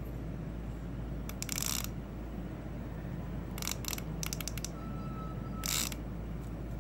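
Shimano Casitas baitcasting reel's clicker ratcheting in several short bursts of rapid clicks as its spool turns and line comes off.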